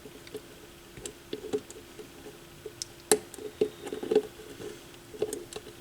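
Irregular small clicks, taps and light knocks of turntable parts being handled and fitted, the loudest a few sharp clicks around the middle, over a faint steady hum.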